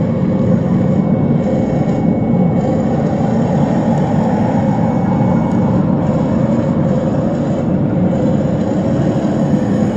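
Radio-controlled model tank running, a steady, unbroken mechanical rumble.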